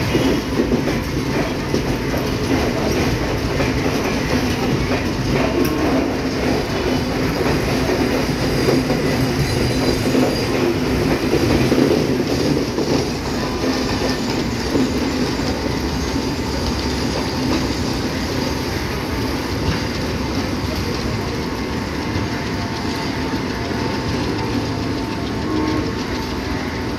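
Chinese-built passenger coaches of a train rolling past, their wheels rumbling and clattering on the rails. The sound eases off in the second half as the last coaches go by.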